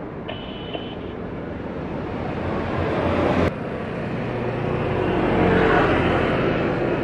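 Jet airliner engines. First a twin-jet climbing away after takeoff, its noise slowly swelling. About 3.5 s in the sound cuts to an Airbus A320-216 on final approach, its CFM56 engines humming steadily and growing louder as it comes nearer.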